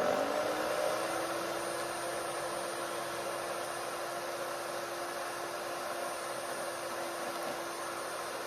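GreenSweep electric wood chipper's motor coming up to speed, its pitch settling within the first second, then running with a steady whir and no branch going through.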